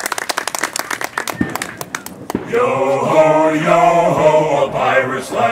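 Clapping that dies away over the first two seconds, then a group of voices singing together in chorus.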